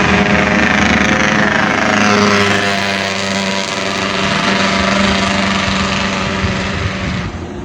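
Small motorcycle engine running as it passes close by, its pitch falling about two seconds in, then a steady hum.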